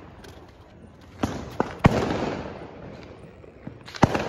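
Firecrackers bursting: three sharp bangs in quick succession about a second in, the third the loudest, and another near the end, each followed by a rolling echo.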